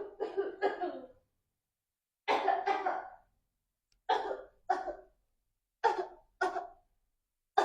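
A man coughing repeatedly in four short fits of one to three coughs each, with pauses between: staged, fake coughing for a prank.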